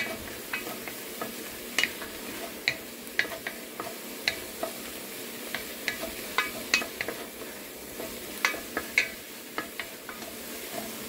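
Onions, garlic and ginger sizzling in oil in an enamelled Dutch oven. A wooden spoon stirs and scrapes against the pot, making sharp, irregular clicks over the steady sizzle.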